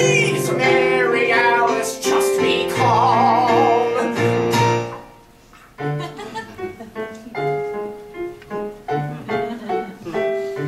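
A man singing a show tune to electric keyboard accompaniment. His last note is held with a wide vibrato and ends about five seconds in, and the keyboard then plays on alone, softer, in evenly spaced chords.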